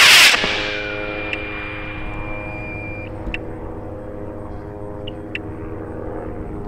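H283ST high-power rocket motor ending its short boost roar, which fades out over about a second. After it, a steady hum with several even tones carries on, with a few faint clicks.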